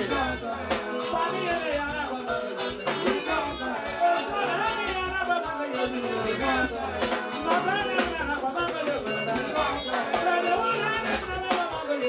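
Live band music: a singer over electric guitar, drums and a shaker, played at a steady dance beat.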